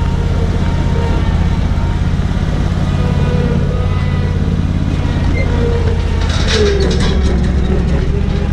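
Motor vehicle engine running steadily while driving, a loud low drone, with a brief burst of rattling clicks about three-quarters of the way through.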